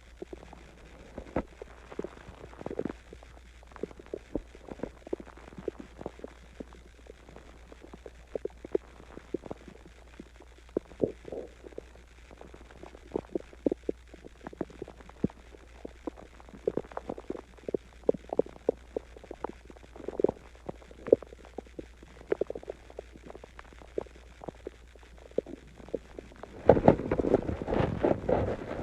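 Human stomach gurgling during digestion after a meal and a drink of water: irregular short gurgles and pops, some in quick clusters, with quieter gaps between. Near the end a louder, denser stretch of rumbling noise sets in.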